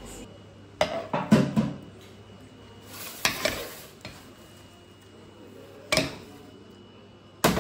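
A metal spoon scraping and clinking in a frying pan as beef slices are spooned out of their sauce. A few separate sharp knocks of kitchenware come through, the loudest near the end.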